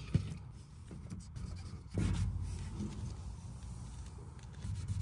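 Microfiber towel rubbing over the wet-sanded paint of a truck bed panel, wiping off the sanding slurry to check for remaining low spots. A soft rubbing noise that gets louder about two seconds in.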